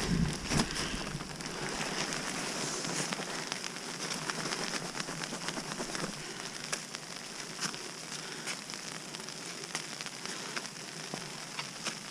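Freezing rain falling steadily in an ice storm, a continuous hiss dotted with many small ticks.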